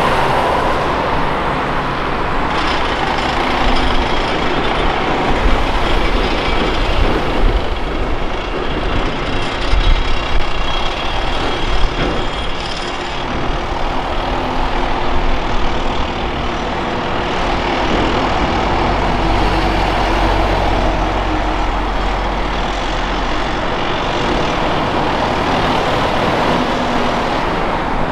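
Diesel engines of a Volvo ECR235E excavator and a Volvo A30G articulated dump truck running under load while the excavator digs and loads dirt and rocks, with irregular knocks and clatter through the first half and a steadier, deeper engine rumble later.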